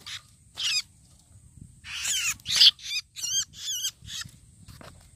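Freshly trapped red-headed babbler giving distress calls: a few harsh, rasping calls, then about three seconds in a quick run of four wavering whistled notes.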